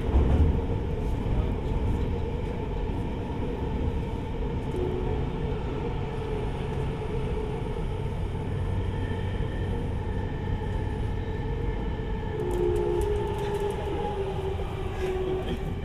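Toyo Rapid Railway 2000 series electric train running between stations, heard from inside the car in a subway tunnel: a steady rumble of wheels on rail with faint steady whines, a higher one joining near the end.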